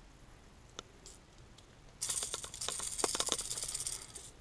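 Rattle beads inside a hard-bodied crankbait fishing lure shaken by hand: a fast clatter of small clicks starting about two seconds in and lasting about two seconds. It is the rattle meant to irritate bass into striking.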